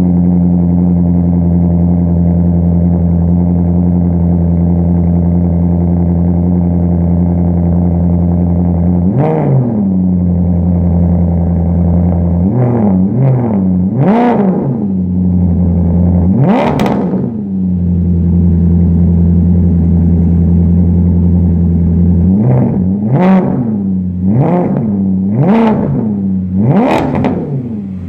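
Maserati Quattroporte V8 idling steadily through its quad-tip exhaust just after a cold start, blipped in short revs. There is one rev, then three quick ones, then a bigger, longer rev, and a run of five blips near the end.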